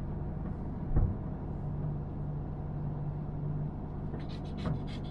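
Steady engine and road-tyre drone heard from inside a moving car, with a low thump about a second in, as from a bump in the road.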